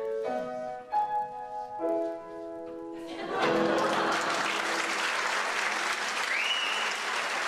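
The song's final held chords end, and about three seconds in an audience breaks into steady applause. A single whistle rises out of the clapping near the end.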